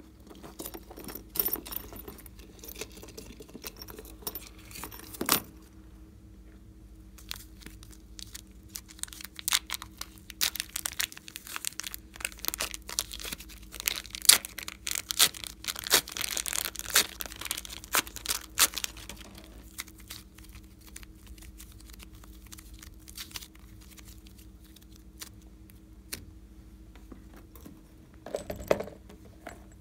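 A thin clear plastic sheet peeled off the top of soft slime, crackling and tearing for about twelve seconds in the middle. Before that come scattered clicks and knocks of hard plastic cases being opened and handled, and there is one more knock near the end.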